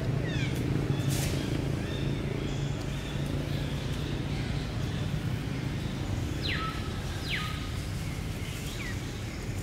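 Short, high animal calls that fall in pitch: a few near the start and two close together past the middle, over a steady low hum.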